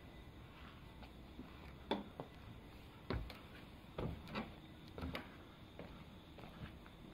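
About half a dozen soft, irregular knocks and clicks over a faint steady hiss, the loudest about two and three seconds in.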